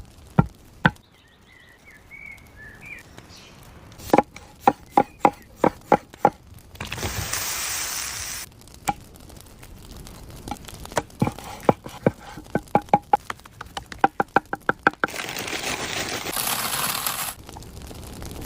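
Knife chopping food on a cutting board in quick runs of sharp strokes, several a second, broken by two stretches of steady hissing, each about two seconds long.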